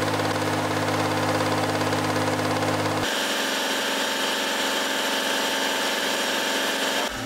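Toyota 1JZ straight-six engine running at a steady speed. About three seconds in the sound changes abruptly and the deep bass drops away.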